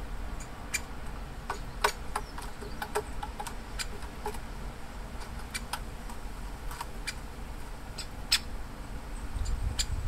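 Juvenile great spotted woodpecker begging to be fed: short, sharp calls repeated irregularly, a few a second.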